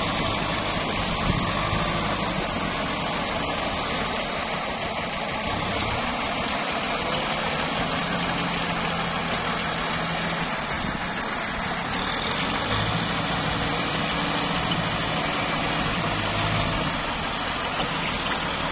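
Kubota farm tractor's diesel engine running steadily under load as it drives through a flooded, muddy paddy, with water and mud churning around the wheels.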